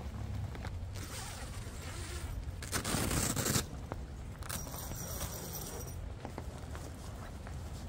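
Zipper and canvas of an inflatable tent's door being unzipped and the flap pulled back: several scraping zip strokes, the loudest briefly about three seconds in, over a low steady rumble.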